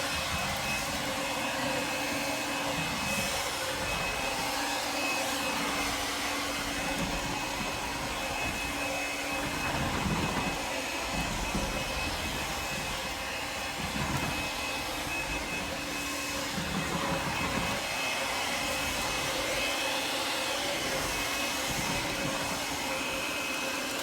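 Shark Navigator Freestyle SV1106 cordless stick vacuum running steadily on its hardwood-floor setting, a thin high whine over the rush of its motor and airflow.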